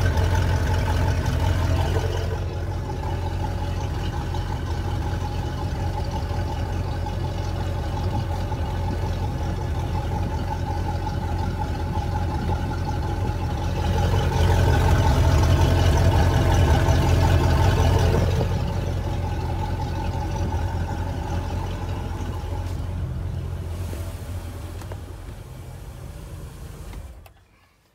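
MerCruiser 350 MAG V8 running out of the water on a flushing muzzle, drawing antifreeze through the cooling system for winter storage. It runs steadily, gets louder for a few seconds midway, then settles and cuts off near the end as the engine is shut down.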